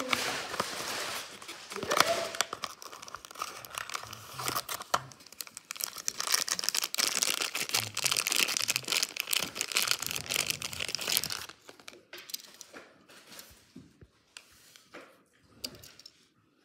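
Thin cardboard of a small toy-car box tearing and rustling as it is opened, then the clear plastic bag around a die-cast model car crinkling as it is pulled off. About eleven seconds in the crinkling stops and only faint clicks of handling remain.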